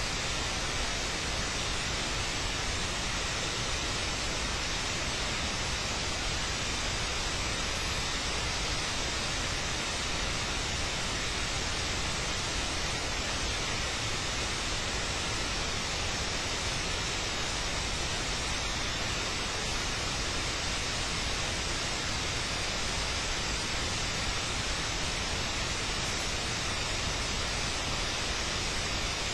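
Steady, even hiss, unchanging throughout, with a faint high steady tone inside it and no distinct events.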